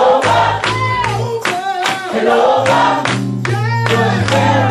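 Gospel praise music: voices singing over sustained low bass notes and a steady beat.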